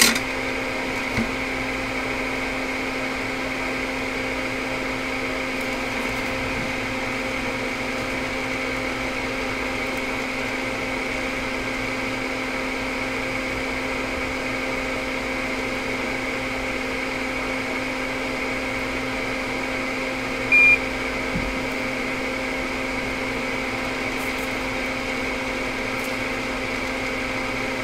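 Solder fume extractor fan running steadily with a hum. A short high beep sounds about three-quarters of the way through.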